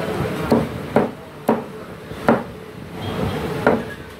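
Large butcher's knife chopping through raw chicken onto a thick wooden chopping block: five sharp knocks at uneven intervals.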